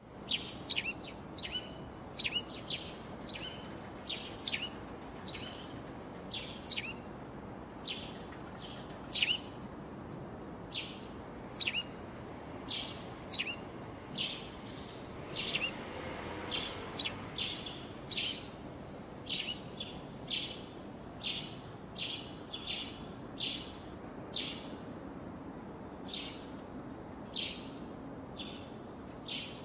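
Sparrows chirping: a long run of short, sharp, high chirps, irregularly spaced at about one or two a second, over a steady low hiss.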